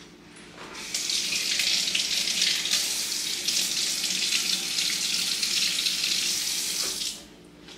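Tap water running into a sink for about six seconds as something is rinsed under it. It starts about a second in and shuts off near the end.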